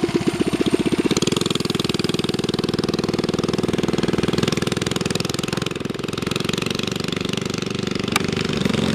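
Small single-cylinder four-stroke engine of a Coleman CT100U mini bike running under riding load, pulsing at first and picking up revs after about a second, then holding a steady drone.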